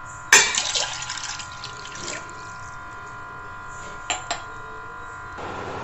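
Water being poured from a glass into a cooking pot: a splashing pour starts suddenly about a third of a second in and tails off over about a second, with a smaller splash around two seconds. Two sharp clicks follow a little after four seconds.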